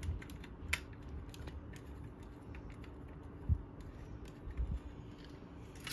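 Screwdriver working a small screw out of a round headlamp's mounting tab: scattered light metal clicks and scrapes, with a dull knock about three and a half seconds in and two softer knocks a second later.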